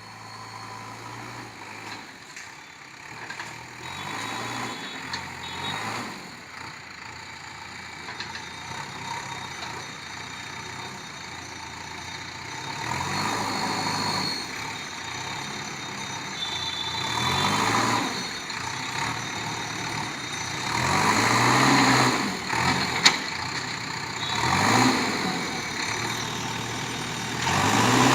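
JCB backhoe loader's diesel engine running, revving up and falling back several times, louder in the second half. One sharp knock is heard late on.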